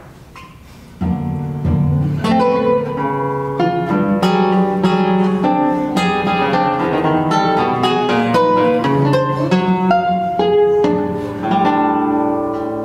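Solo classical guitar: a soft note fades out, then about a second in a fast, dense passage of plucked notes and chords begins and carries on.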